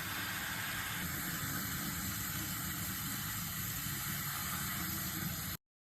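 Steady hiss of running water, stopping suddenly about five and a half seconds in.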